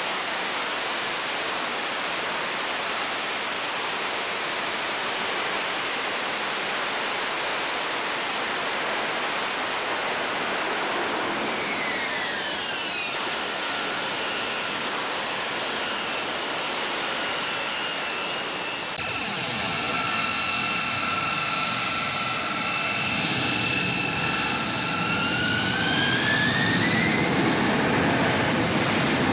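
AV-8B Harrier II's Pegasus turbofan jet engine: a steady jet roar, then a high whine that drops in pitch about twelve seconds in, holds steady, and rises again near the end as the engine spools up.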